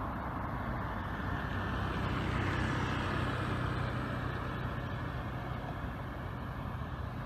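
A motor vehicle's engine hum with a steady low drone that grows louder about two seconds in and then slowly fades.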